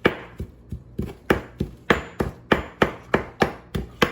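Kitchen knife chopping fresh coriander and ginger on a cutting board, in quick even strokes about three to four a second.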